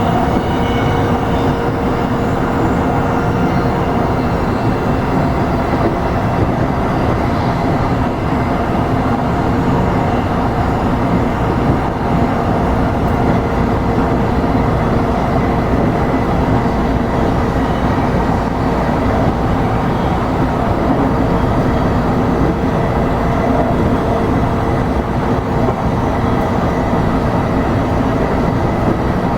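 A JR East E233 series electric train running steadily, heard from inside the car: continuous rumble of wheels on rail with a faint steady hum.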